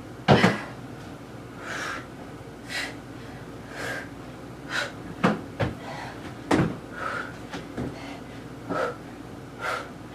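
A person breathing hard from exertion in short, forceful puffs about once a second during push-ups, with a loud thump just after the start and another about two-thirds of the way through.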